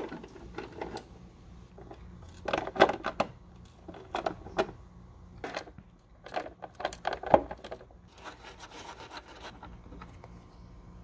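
Socket ratchet clicking in short bursts as it backs out a tail light mounting bolt, followed near the end by a softer scraping as the loosened bolt is turned out by hand.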